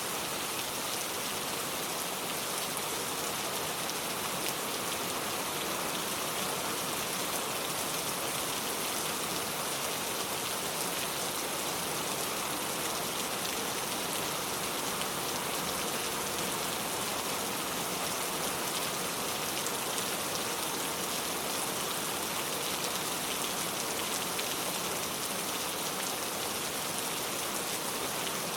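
Steady rain falling, an even hiss that holds at the same strength throughout.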